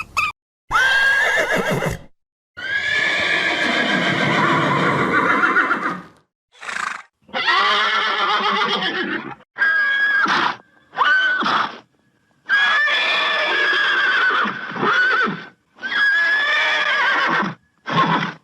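Horse neighing and whinnying: a series of about nine separate calls, each cut off abruptly.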